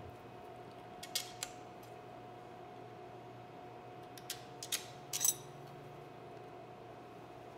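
Small, sharp metallic clicks as a screwdriver is fitted to and turned in the lock screws of a flintlock rifle: a couple about a second in, then a quick cluster between four and five and a half seconds, the last the loudest. A steady background hum runs underneath.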